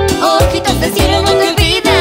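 Upbeat Latin pop song: a pitched melody line over a steady, pulsing bass-and-drum beat.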